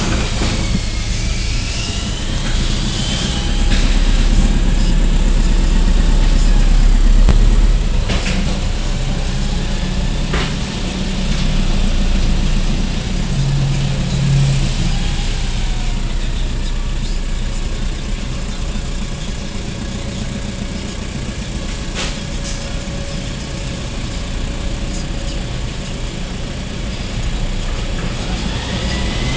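Low, steady engine drone of a rear-loader garbage truck moving slowly, heard from inside a car following close behind, louder from about four to eight seconds in. A few sharp knocks sound over it.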